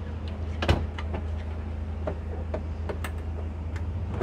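A few sharp clicks and knocks from a small cabinet door and its latch being handled, over a steady low hum.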